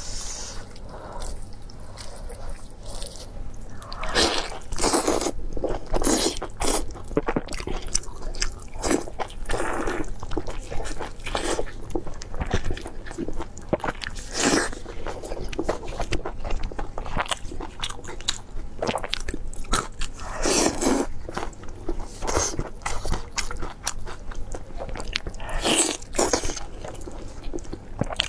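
Close-up eating sounds: crunchy bites and chewing that go on throughout, with louder crunches every few seconds.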